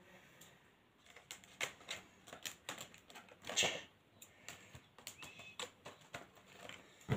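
Scissors snipping and prying open clear plastic blister packaging, a string of irregular short clicks and crackles of plastic starting about a second in.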